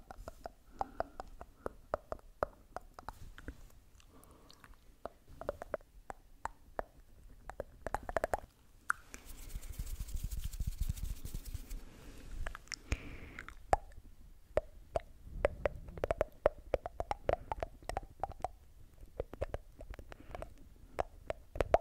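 Close-miked ASMR mouth sounds: runs of quick wet tongue clicks and small pops, made with the hands cupped over the mouth. About halfway through there is a stretch of soft rustling hiss.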